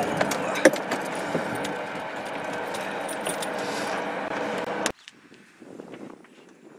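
Small metal clinks and jingling, typical of a dog leash's metal clip, as a dog is lifted into an SUV's cargo area, over a steady background noise. The background drops away suddenly about five seconds in, leaving only a few faint clicks.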